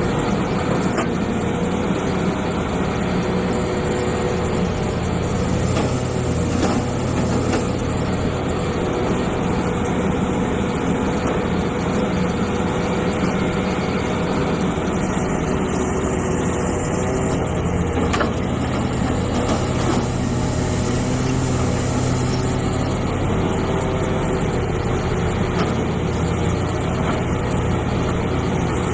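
Hitachi EX450 hydraulic excavator's diesel engine running steadily, its pitch holding with only slight shifts, with a couple of faint knocks.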